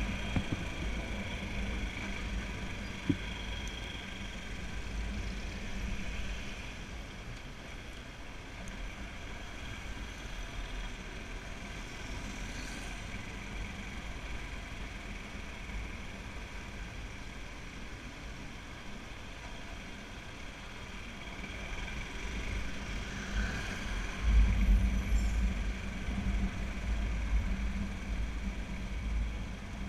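Motorcycle running in slow traffic, with road noise and wind rumbling on the camera's microphone. The rumble grows louder for a couple of seconds near the end.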